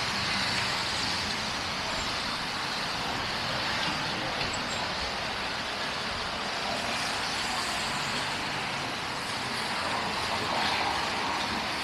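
City street traffic noise: a steady hiss of passing motor vehicles.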